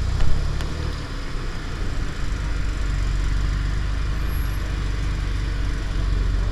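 Car engine idling with a steady low rumble, with one brief knock about a quarter-second in.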